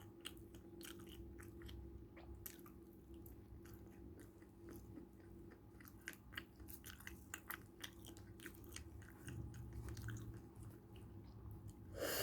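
Faint chewing of fried chicken, with frequent small crunches and wet mouth clicks.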